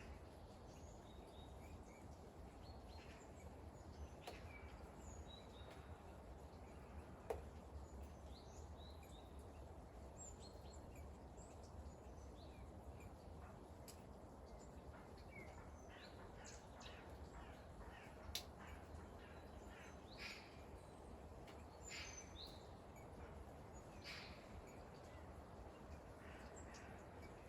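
Faint winter rain ambience: a steady soft hiss with scattered sharp drips and taps, two of them louder, about seven and eighteen seconds in. Small birds chirp faintly now and then.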